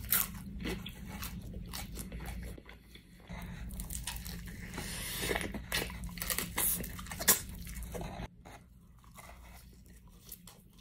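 Crispy fried chicken being bitten and chewed close to the microphone: repeated crunches of the breaded coating with chewing between them. The crunches thin out and go softer for the last couple of seconds.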